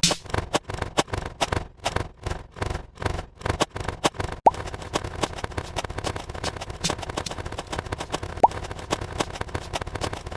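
Edited sound-effect montage: a rapid string of sharp clicks and taps, several a second, that switches abruptly about four and a half seconds in to a denser, more even crackle, with two short chirps.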